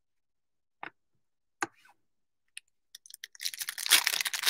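Two light clicks, then a dense crackling, crinkling burst near the end as the foil wrapper of a Select basketball card pack is torn open.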